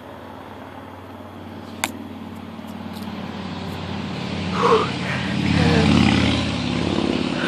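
A steady motor hum that grows louder over the last few seconds, with one sharp click about two seconds in.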